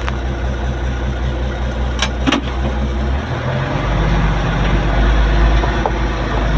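An engine running steadily, its note shifting up and getting louder about three to four seconds in.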